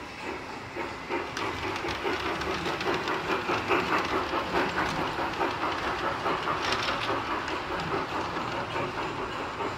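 Model steam locomotive running along the layout's track, with a rhythmic clatter of about three beats a second that grows louder about a second in.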